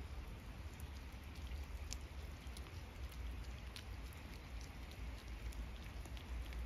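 Rain falling on wet paving stones: a steady patter with scattered sharper drop ticks, over a low rumble.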